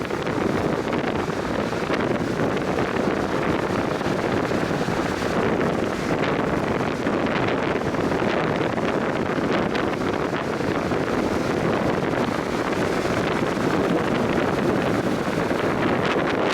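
High wind buffeting the microphone over big waves breaking on a Lake Michigan beach: a steady, loud rush of noise with no letup.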